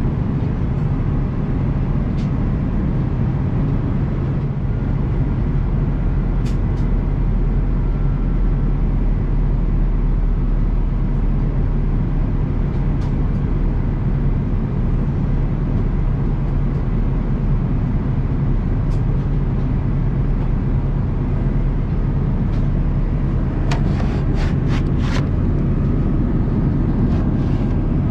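Steady low rumble of cabin noise aboard an Airbus A330-200 with its engines running. A quick run of five or six sharp clicks or rattles comes near the end.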